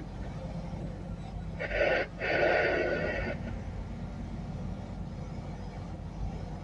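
Semi-truck diesel engine running steadily, a low drone heard from inside the cab while driving. A short voice sound cuts in over it about a second and a half in and lasts under two seconds.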